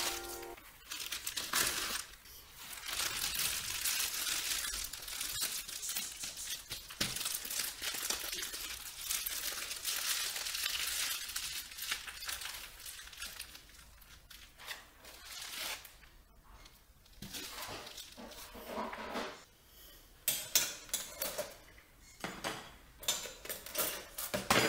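Thin plastic bread bag of bagels crinkling and rustling as hands handle, fold and press on it. Quieter after about two-thirds of the way through, then a run of sharp clicks and knocks near the end.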